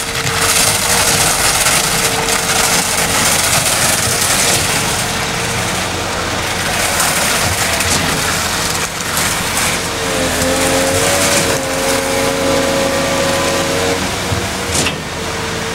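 Concrete pump truck running steadily while pumping concrete through its boom hose: loud, even machine noise with a held whine. For a few seconds past the middle, further steady tones join in.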